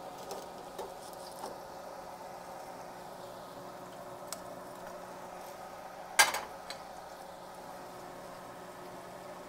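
Hot oil in an electric deep fryer bubbling with a steady faint hiss, with a few small metal ticks from the basket and tongs. About six seconds in comes one sharp metal clank, followed by two lighter clinks.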